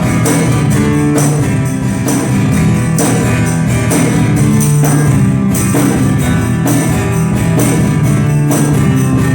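Live instrumental music: a guitar played along with percussion such as a tambourine, keeping a steady beat.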